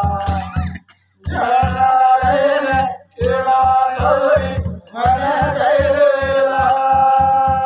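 Men singing a devotional song in phrases over large rope-laced drums beaten in a steady rhythm, about three strokes a second. Singing and drumming break off briefly about a second in and again about three seconds in.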